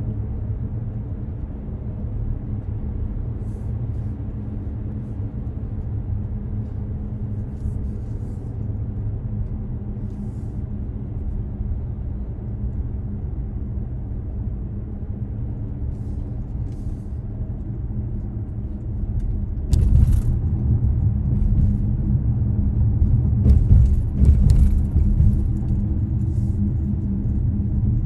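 Car driving on the road: a steady low rumble of engine and tyres, getting louder about two-thirds of the way in, with a few faint clicks.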